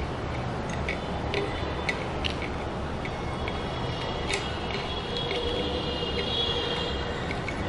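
Small paper packet of salt being handled and opened over a glass flask: a few light, scattered clicks and crinkles over a steady background rumble, with a faint high whine in the second half.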